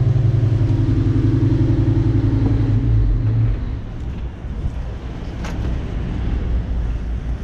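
Boat's diesel engine running steadily at idle, a low rumble. Its louder part drops away about three seconds in, leaving a quieter low rumble.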